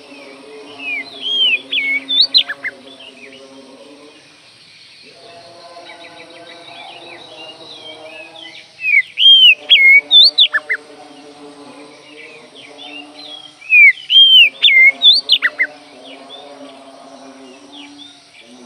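Oriental magpie-robin (kacer) singing: a loud phrase of rapid, sweeping whistles, given three times about five to six seconds apart. A quieter low hum runs underneath.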